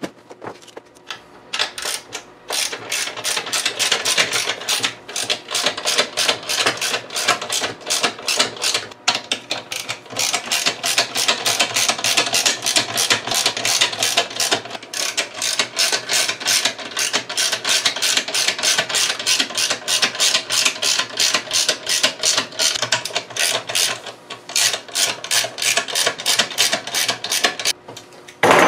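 Socket ratchet with an extension clicking in rapid, even runs as a bolt on the radiator's air scoop is turned, with a few short pauses. A single loud knock comes near the end.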